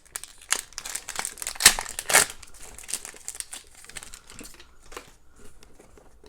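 Plastic wrapper of a hockey card pack crinkling and tearing as it is ripped open, loudest in the first couple of seconds, then dying down to lighter rustling.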